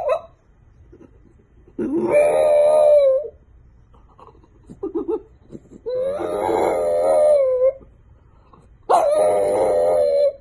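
French bulldog howling: three long howls, each about one and a half to two seconds, held near one pitch with a slight waver, with a short yelp between the first and second.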